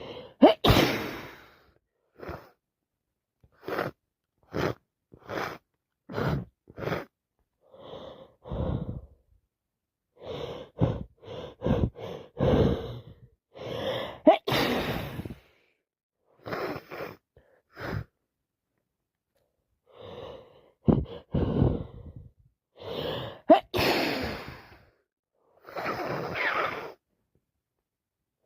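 A woman sneezing over and over with a head cold and allergies: wet sneezes mixed with sharp gasping in-breaths and short breaths, a burst every second or so. The loudest sneezes come near the start, around the middle and about three-quarters of the way through.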